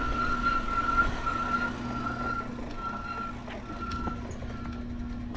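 E-bike brakes squealing as the bike slows to a stop: one steady high squeal that breaks into shorter squeaks about two and a half seconds in and fades out near the end. Brake cleaner has not cured the squeak.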